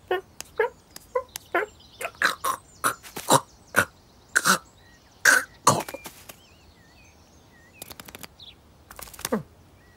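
Cartoon cat sound effects voiced by a person: a string of short huffs, grunts and chirrups as the cat plays and stalks. These are followed by a few faint high chirps and a brief rustling burst near the end.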